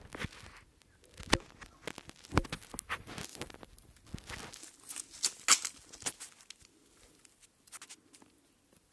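Close, irregular rustling and crackling with sharp clicks, dense for about six seconds and then sparse.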